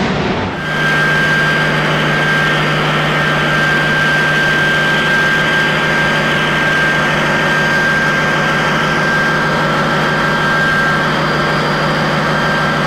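Zvezda radial marine diesel running steadily in a boat's engine room: a deep, even drone with a thin, high, steady whine over it. It starts on a cut about half a second in, from a rushing engine noise before it.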